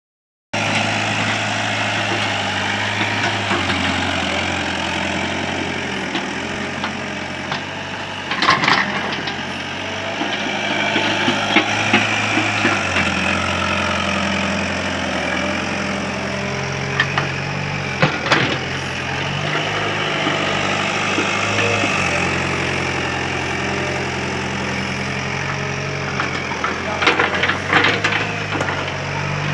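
Sumitomo hydraulic excavator's diesel engine running steadily, its note stepping up and down several times as the machine takes load. A few sharp metallic knocks sound about eight and eighteen seconds in, and a cluster comes near the end.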